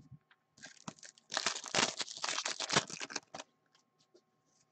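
A trading-card pack wrapper being torn open and crinkled in the hands: a dense, crackly run of tearing lasting about three seconds, with a few light clicks around it.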